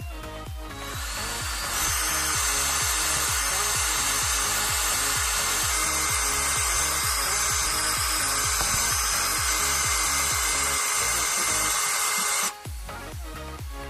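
18-volt cordless drill running steadily as it bores into a rugged phone, a dense grinding whine that starts about a second in and cuts off suddenly near the end. Background music with a steady beat plays underneath.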